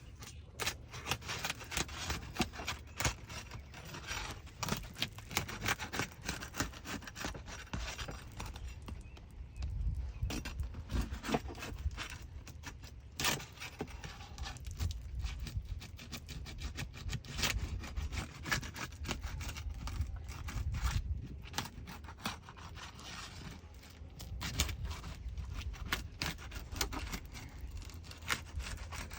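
Roofing pry bar scraping and clicking under asphalt shingles as their sealant strip is broken loose, in irregular strokes with a low rumble of wind behind.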